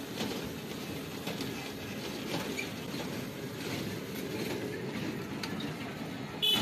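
Mountain bike rolling along an asphalt road: a steady low rumble of tyres and riding, with light rattling clicks from the bike. A short high-pitched beep sounds near the end.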